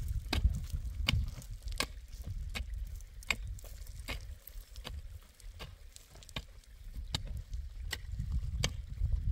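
Regular, evenly spaced chopping strikes, about four every three seconds, over a steady low rumble.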